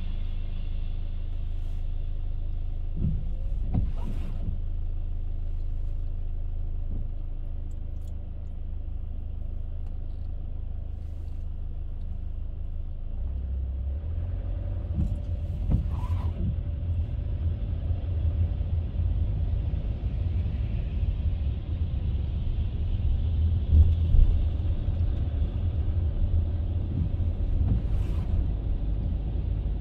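Car driving along a road: a steady low rumble of road and engine noise that gets heavier about halfway through, with a few brief knocks.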